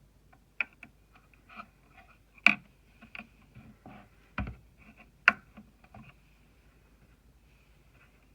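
Scattered sharp clicks and light knocks of small hard parts being handled while installing M.2 SSDs on a motherboard. Two sharper clicks stand out, one about two and a half seconds in and one about five seconds in, with a dull thump between them. The clicking stops about six seconds in.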